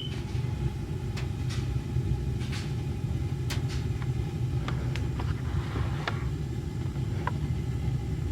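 Gas water heater's main burner firing after the pilot is relit, a steady low rumble with scattered light ticks over it.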